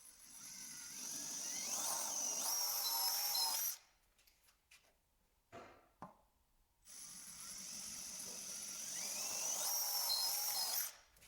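Power drill with a 5 mm bit drilling two holes into a mast, one after the other: each run winds up with a rising whine, runs for about four seconds and cuts off suddenly, with a short pause and a couple of small clicks between them.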